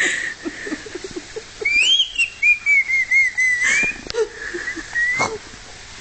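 Parrot whistling a wavering, warbling tune of rising and falling notes for about three and a half seconds, starting a couple of seconds in. A few sharp clicks sound alongside it.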